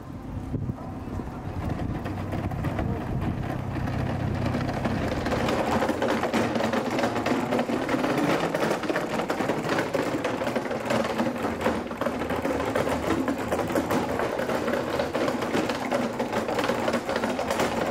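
Small casters of a wheeled wooden confessional cart rattling rapidly and continuously as it is pushed over brick paving. The rattle builds over the first few seconds.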